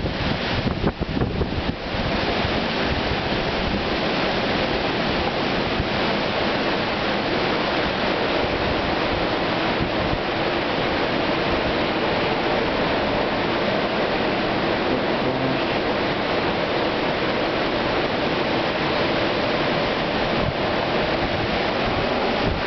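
Hurricane-force wind blowing hard and steadily, a dense unbroken rush of storm noise, with gusts buffeting the microphone in the first couple of seconds.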